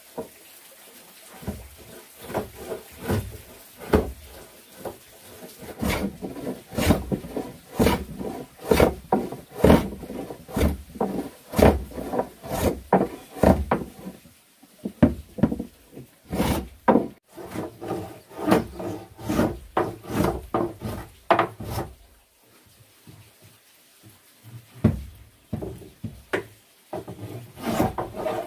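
Wood being worked by hand in a steady run of repeated rubbing strokes, about one and a half a second, pausing briefly twice.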